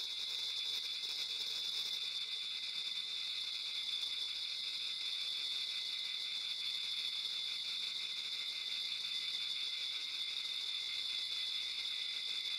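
Steady high-pitched chirring drone with a fine rapid flutter, like massed crickets, from the soundscape score of a stage performance.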